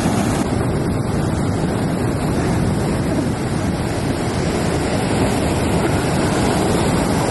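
Ocean surf breaking and washing up a beach, a steady rush of waves.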